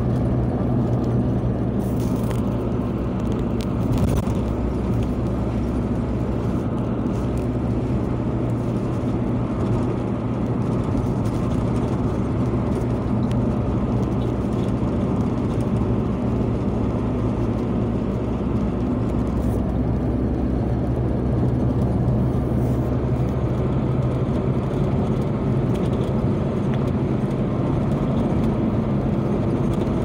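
Steady engine hum and tyre and road noise from inside a moving car's cabin, cruising at an even speed.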